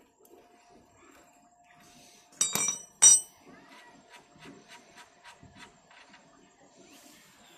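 A steel ring spanner clanks twice onto a concrete floor, ringing metallically after each strike, then a run of light metallic clicks, about three a second, as the loosened front axle nut is turned off its threaded shaft by hand.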